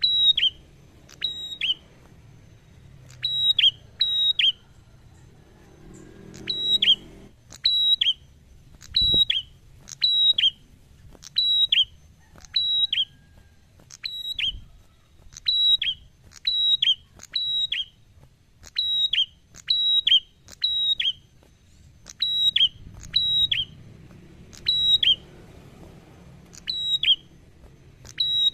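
Ashy tailorbird calling repeatedly: loud, sharp whistled notes that each drop quickly in pitch, mostly in quick pairs, about one or two a second with short pauses between runs.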